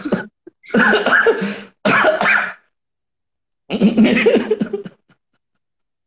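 A person laughing in four short bursts, the last one choppy.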